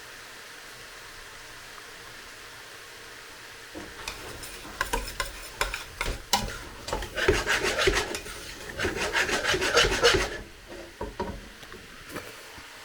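Peppers and onions frying with a steady low hiss, then about four seconds in a utensil scrapes and stirs them around the pan for several seconds, with a run of quick rasping scrapes and sharp clicks, tapering to a few knocks near the end.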